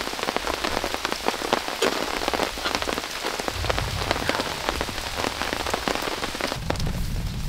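Heavy rain falling steadily, with many separate drops striking close by. A low rumble joins underneath about halfway through.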